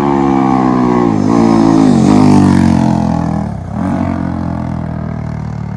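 KTM RC 390's single-cylinder engine through a loud aftermarket exhaust, its revs falling, dipping sharply and picking up again a few times as the rider works the throttle, then settling to a steadier, lower note for the last couple of seconds.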